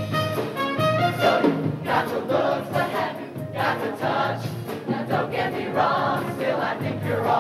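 High-school show choir singing an upbeat number in parts over accompaniment with a steady beat.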